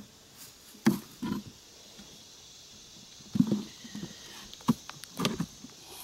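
Metal hive tool knocking and prying at the wooden frames of a beehive box: a handful of short, separate knocks and scrapes.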